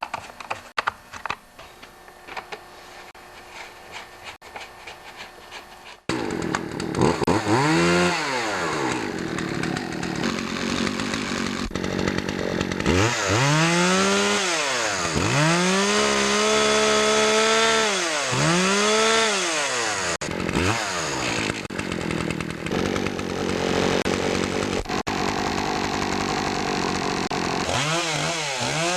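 A few light clicks of handling, then, about six seconds in, a Poulan Pro PP4620 two-stroke chainsaw engine runs, its throttle opened and released several times so the pitch rises and falls. The saw is running on a freshly fitted clean air filter, which frees it from the rich, choke-on running that the clogged filter caused.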